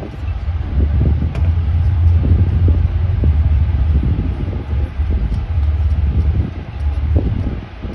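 Wind buffeting the phone's microphone: a loud, uneven low rumble that flutters and dips, with no steady tone.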